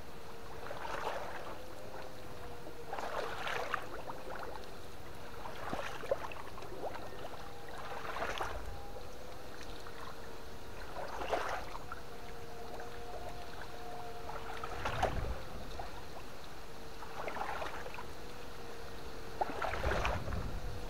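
Steady, slightly wavering whine of a battery fish-shocker's inverter, with splashing in the water every two to three seconds.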